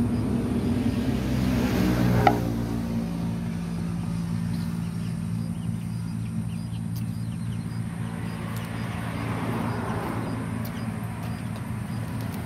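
An engine running steadily with a low hum, swelling slightly about two seconds in, where a single sharp knock is heard.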